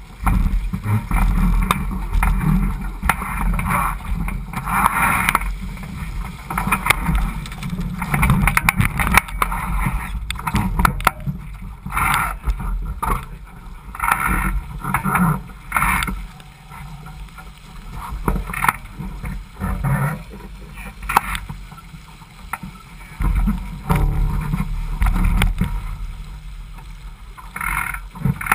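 Water rushing and splashing along the hull of a Laser 4000 sailing dinghy under way, with a low rumble on the boat-mounted microphone; the rush surges irregularly and eases somewhat in the second half.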